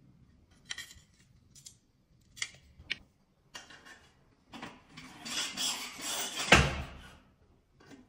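Metal clicks and clatter as a sliding-door profile and its roller fitting are handled, then a longer scraping rub of the metal profile being worked into place about five seconds in, ending in a sharp knock.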